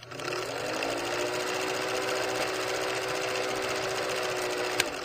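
Vintage film projector sound effect: the motor whirs briefly up to speed, then runs steadily with the film clattering rapidly through the gate, and a sharp click near the end.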